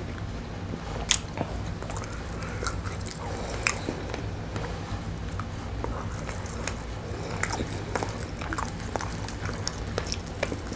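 Close-up mouth sounds of a person eating fried chicken: chewing and biting, with scattered short crunches and smacking clicks.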